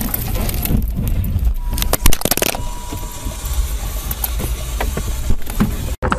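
Rattling and knocking of a dashcam shaken loose inside a car just after a collision, over a low rumble, with a loud cluster of knocks and clatter about two seconds in.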